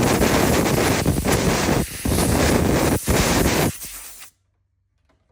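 Compressed air blowing loose hair out of an opened cordless hair clipper: a loud, steady rush of air with two brief breaks, cutting off about four seconds in.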